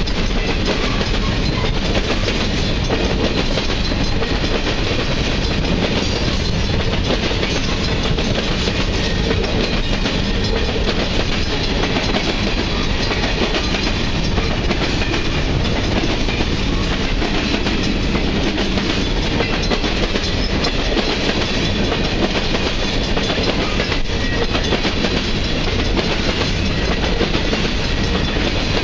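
Grain train's freight cars rolling past at a steady speed, a continuous noise of wheels on the rails.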